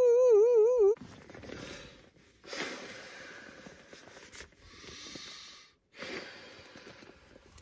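A brief, loud, wavering mosquito-like whine, then three long breaths blown by mouth into an inflatable camp pillow to blow it up.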